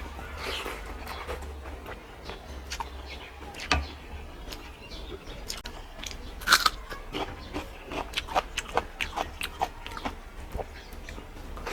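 Close-up eating sounds: a person chewing a meal of rice and fish curry, with many short wet smacks and clicks of the mouth. One sharper crack comes about six and a half seconds in, and the smacks come quicker toward the end.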